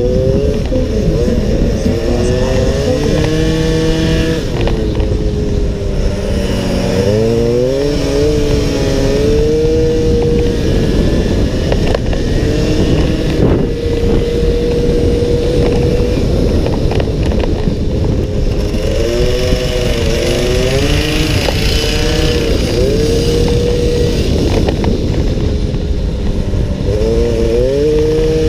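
Small racing scooter engine heard from onboard at full throttle, holding a high steady note on the straights. Its pitch dips and climbs back three times as the rider eases off for corners and accelerates out, over a constant rush of wind.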